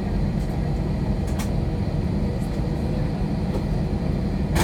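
Steady low rumble inside a jet airliner's cabin as it heads out to take off, the sound of the engines and airframe carried through the cabin. A couple of light clicks sound about a second and a half in and at the very end.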